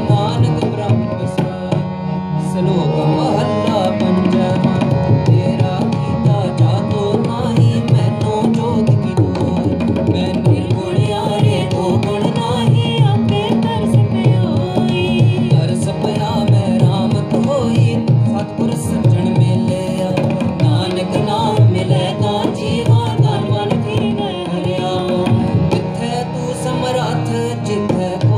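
Tabla played at an even, quick pace under a sustained melodic line, in Sikh kirtan devotional music.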